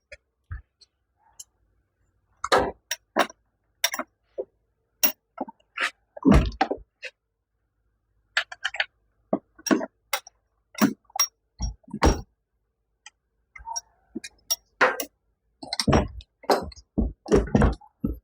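A steel T-post and bench vise clanking: a run of irregular sharp metal clinks and knocks, with a few heavier thunks, as the vise is rotated and the post repositioned in its jaws.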